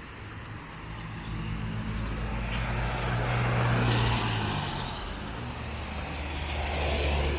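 Motor vehicles driving past close by. An engine hum and tyre noise swell to a peak about four seconds in, and a second vehicle draws near toward the end.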